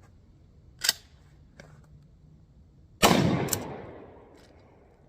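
A single 12-gauge pump shotgun blast about three seconds in, ringing out and dying away over a second and a half. It is preceded by a sharp click about a second in, and a short click follows just after the shot.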